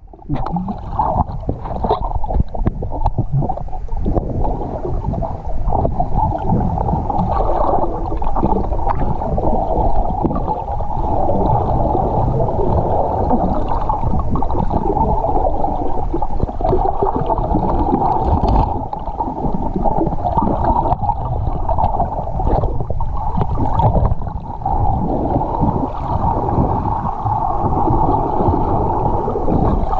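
River water heard through a GoPro's waterproof housing held underwater: a loud, steady, muffled rushing with frequent small knocks as the swimmer moves the camera through the current.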